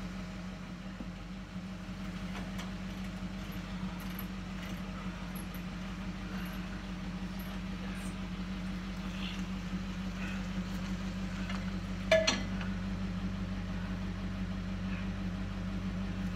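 Pickup truck engine idling steadily while the truck is pushed, with one sharp metallic clank about twelve seconds in.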